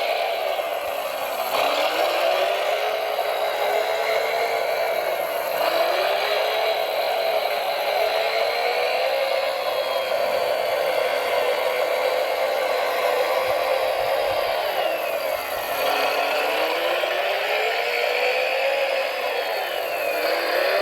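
Whirring motor drive of a radio-controlled model construction vehicle working under load. Its pitch drops and climbs back up about four times as the throttle is eased and opened again.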